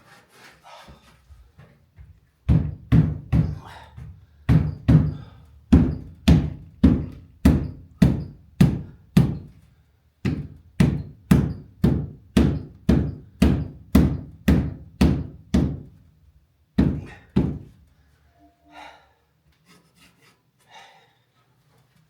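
A run of dull knocks, two to three a second, with a brief pause about ten seconds in and two last knocks a little later.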